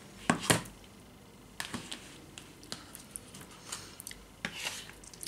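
A fork scooping egg salad (mashed hard-boiled eggs with mayonnaise) out of a bowl and dropping it onto sandwich bread: a series of short scrapes and taps, the loudest about half a second in.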